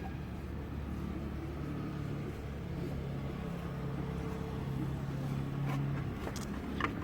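A motor vehicle engine running steadily with a low hum, its pitch shifting a little, with a few short clicks near the end.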